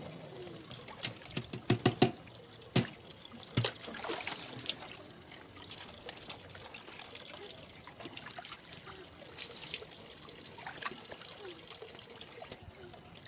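Water trickling and splashing in a plastic tub, with a few sharp knocks or splashes in the first four seconds.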